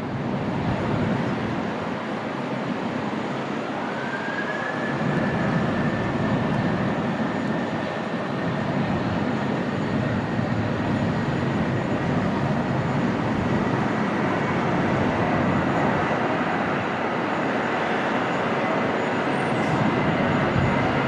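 Airbus A321 jet engines at takeoff power through the takeoff roll: a steady rumble with a high whine that rises about four seconds in and then holds.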